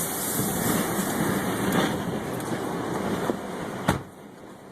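Strong tornado wind rushing across the microphone, with a few faint knocks. A sharp knock comes near the end, after which the wind noise drops off.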